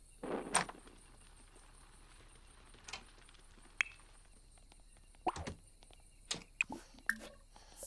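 Scattered light knocks, clicks and a brief rustle of small objects being handled, against a quiet steady background.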